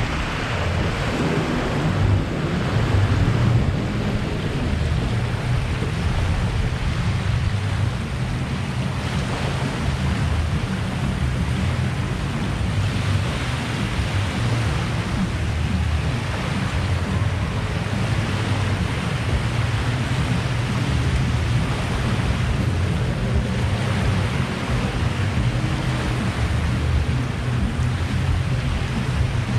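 Wind blowing steadily across the microphone, with small lake waves washing against the shore.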